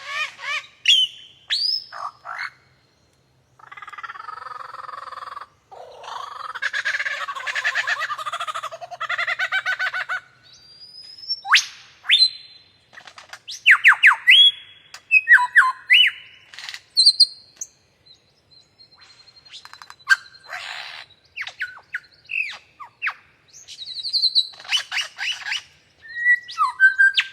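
Superb lyrebird singing a long, varied song: clear whistles, quick downward-sweeping notes and clicks, with a long harsh rattling chatter in the first third.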